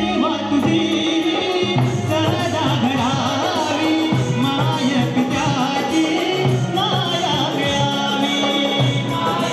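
A Marathi devotional song in the Konkan Shakti-Tura folk style: a male voice singing a wavering, ornamented melody over steady held notes from the accompaniment and a hand-drum rhythm.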